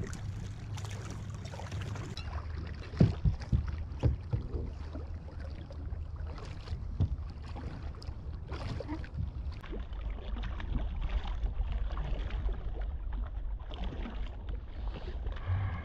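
Water splashing and sharp knocks against the kayak hull as a large yellowtail kingfish is held alongside, the loudest knocks about three to four seconds in, over a steady low rumble of wind on the microphone.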